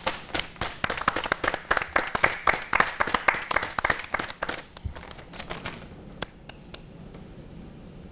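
Hand clapping, quick and irregular for about four and a half seconds, then thinning to a few scattered claps that stop about six and a half seconds in.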